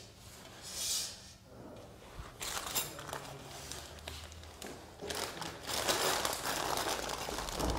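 Aluminium mounting-frame rails and their bolts and fittings scraping and clicking as they are handled and fitted together by hand. It starts with a brief rub, then scattered clicks, and grows into denser scraping and clicking over the last few seconds.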